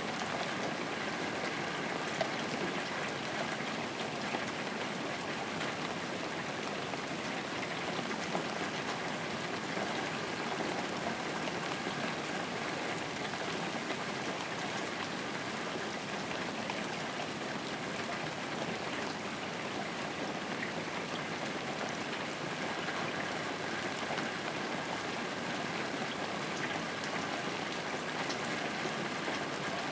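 Steady rain falling: a constant, even hiss of many drops with no break or change.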